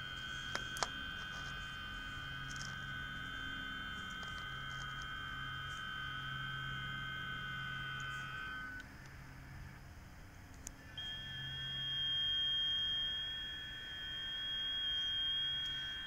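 FT8 digital-mode signals on the 10-metre band (28.074 MHz) from the speaker of an Eton G6 Aviator shortwave receiver: several steady tones at different pitches over receiver hiss, with two short clicks just after the start. The tones stop about nine seconds in, leaving two seconds of hiss, then a new set begins as the next 15-second FT8 transmit period starts.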